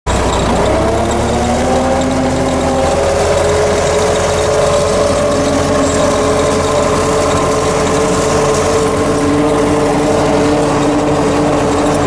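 MTZ-50 tractor's four-cylinder diesel engine running while the tractor drives along, heard from inside the cab. Its pitch rises over the first couple of seconds, then holds steady over a low drone.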